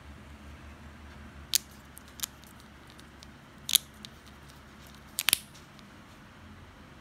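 Hinged plastic lids on a strip of cockroach bait caps snapping shut: a series of sharp plastic clicks, the loudest about one and a half, three and a half and five seconds in, the last a quick double click.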